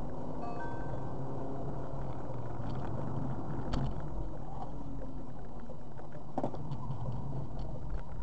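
Car driving along a city street, heard from inside the cabin: steady engine hum and tyre noise. A short high tone sounds about half a second in, and there are two brief knocks, one about 4 seconds in and one about 6.5 seconds in.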